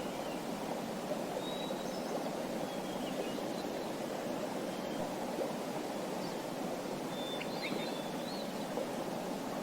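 Small birds chirping in short, high calls now and then, a small cluster of them near the end, over a steady rushing sound of flowing water.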